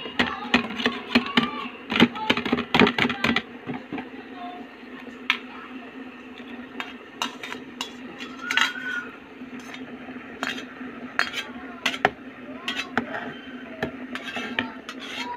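Metal colander knocking and clinking against a steel pot as cooked tapioca pearls are tipped out of it. There is a dense clatter for the first few seconds, then scattered clinks, over a steady low hum.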